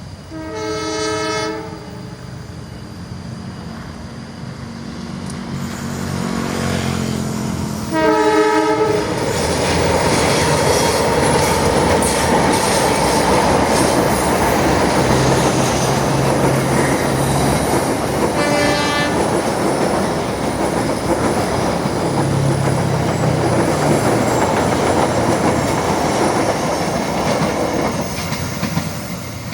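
A train sounds its horn three times as it approaches and passes: one blast right at the start, a louder one about eight seconds in, and a shorter, fainter one later. The locomotive's rumble builds as it draws near and becomes loud as it arrives. A long, steady rumble and clatter of wheels on rails follows as the cars roll by, fading slightly near the end.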